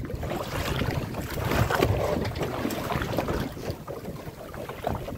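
Wind buffeting the microphone over the rush of water around a small fishing boat at sea, with irregular knocks and splashes; it is loudest in the middle.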